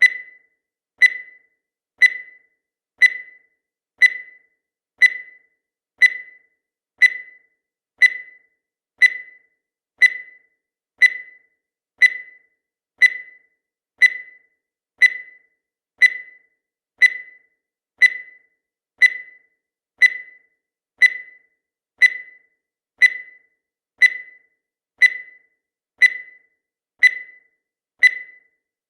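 Countdown timer beeping once a second: a short, high beep that dies away quickly, ticking off each second.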